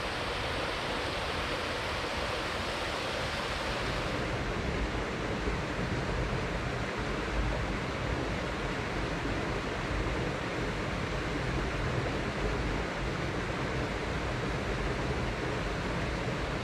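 Steady rush of flowing stream water. About four seconds in, the highest hiss drops away and the sound turns duller.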